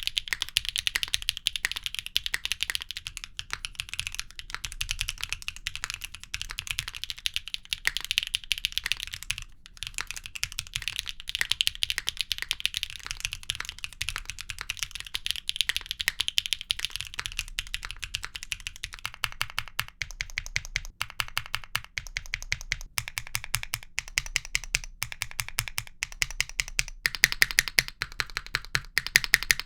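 Typing on a Neo60 Core 60% mechanical keyboard, in a sound test of two builds: HMX Canglan V3 switches on an aluminium plate with no foam, then HMX Noire switches on a polypropylene plate with full foam. About two-thirds in, the fast run of key clacks gives way to more separate keystrokes.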